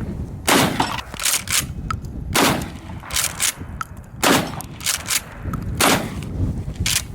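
Four shots from a 12-gauge Mossberg Maverick 88 pump-action shotgun, a little under two seconds apart, with the pump racked in a quick double clack between shots.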